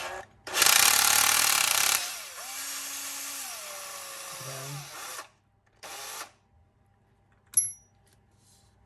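Handheld electric driver running as it drives in a pad screw: loud for about a second and a half, then running more quietly for about three seconds before stopping. A short burst follows, then a single sharp metallic click near the end.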